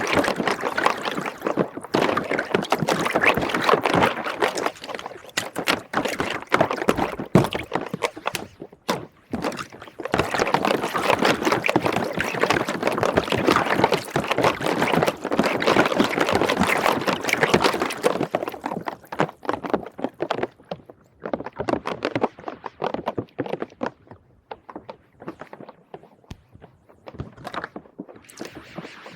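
Soapy water sloshing and bubbling, with a dense crackle of small clicks for about the first two-thirds, then thinning out to scattered clicks and splashes.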